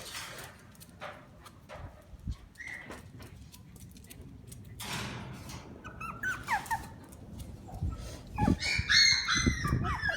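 Shiba Inu puppies whining and yelping in high-pitched, gliding cries. The cries start thin about six seconds in and grow loud and crowded near the end, after a stretch of faint taps and scuffling.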